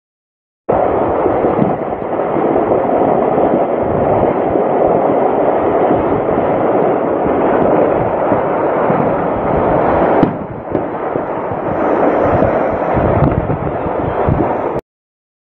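Ammunition cooking off in a burning munitions depot: a dense, continuous crackle of many rapid small detonations. It starts after a moment of silence, eases briefly about ten seconds in, and cuts off suddenly near the end.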